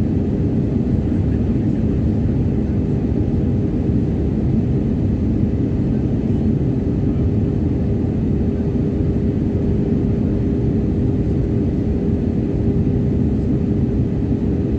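Airliner cabin noise on approach: a steady low rumble of the jet engines and airflow heard from a passenger seat, with a faint steady hum over it.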